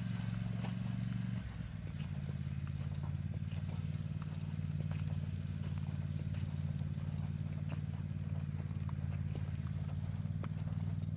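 Horse trotting on soft arena dirt: hoofbeats clip-clopping, over a steady low rumble.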